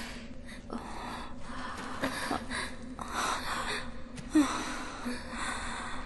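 A woman's gasping, panting breaths, several in a row, with one sharper, louder gasp about four seconds in.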